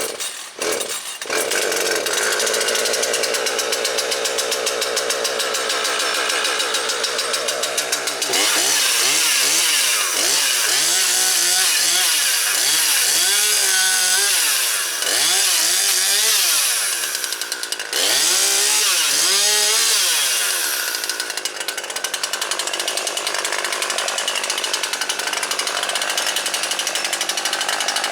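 Husqvarna 540XP Mark III two-stroke chainsaw running at high revs while cutting up storm-fallen branches. From about eight seconds in, its pitch dips and recovers again and again as the chain bites into wood. It runs steadily again for the last several seconds.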